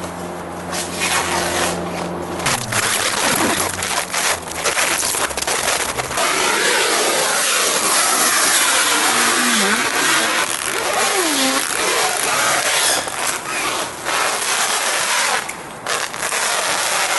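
Plastic stretch wrap being pulled off the roll and stretched tight around trees, a loud continuous crackling and crinkling with sharp snaps and a couple of short squeaks.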